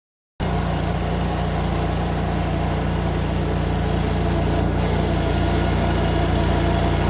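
Sawmill machinery running: a steady low machine hum that starts abruptly about half a second in.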